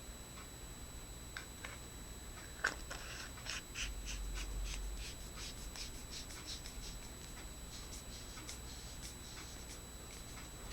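Faint handling of a metal flashlight being put back together by hand: a run of small clicks and ticks as batteries and parts are fitted and the head and tail are screwed on.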